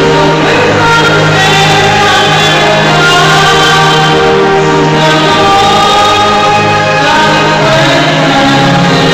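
Church choir singing a slow hymn with long held notes, in a large church.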